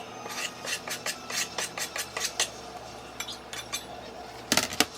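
Knife chopping fresh dill on a cutting board: quick, regular strokes, about six a second, thinning out after two and a half seconds, then a few louder knocks near the end.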